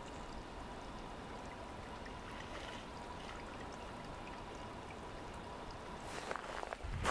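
Glacial meltwater running steadily, with a faint steady high tone under it. A few short knocks come near the end.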